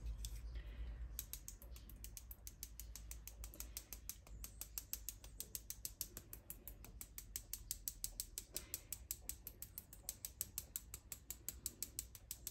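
Cinnamon shaker jar shaken quickly over the dough: a fast, even run of light clicks, about eight a second, starting about a second in.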